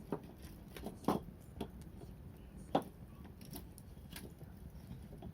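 Burning wood crackling in an open fire: scattered sharp pops, the two loudest about a second in and just under three seconds in, over a low steady rumble.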